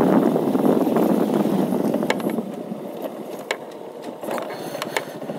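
Motorcycle engine running while being ridden over a rough, bumpy dirt road, easing off and getting quieter about halfway through. Several short sharp knocks in the second half, rattles from the bike jolting over the broken surface.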